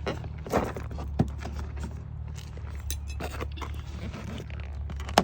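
Plastic trim cover being handled and pushed back into place: scattered clicks, knocks and scrapes, with a sharp click about a second in and another at the very end, over a steady low hum.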